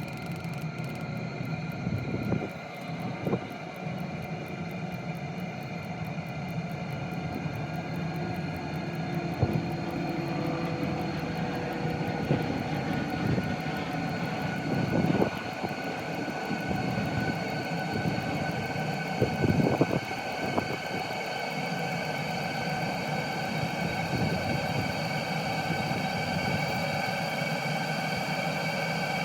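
Chinese 12 V diesel air heater running, its blower and combustion fan giving a steady whine with overtones. A few soft knocks come through it.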